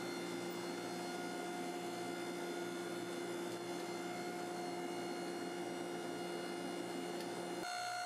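A steady hum made of several steady tones, with a change in pitch near the end.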